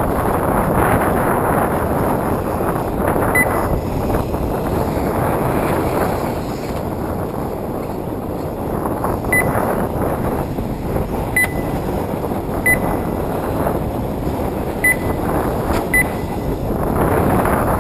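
Wind buffeting the microphone, with six short high electronic beeps at irregular intervals from the race's lap-timing system as RC buggies cross the line.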